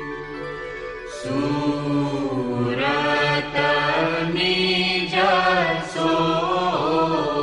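Devotional guru vandana hymn chanted to music. From about a second in, a sung melody with sliding, bending pitch rises over a steady held drone.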